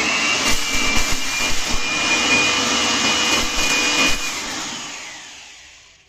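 Handheld 600 W electric mini blower running in vacuum mode, its motor giving a steady high whine over a rush of air, somewhat noisy. A few ticks in the first two seconds are rice grains being sucked up the nozzle. About four seconds in it is switched off and the whine winds down and fades away.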